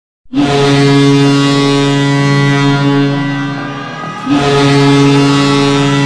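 Traktor Chelyabinsk's ice hockey goal horn sounding for a goal: one long, low blast of about four seconds that fades a little, then a second long blast that starts right after it, about four seconds in.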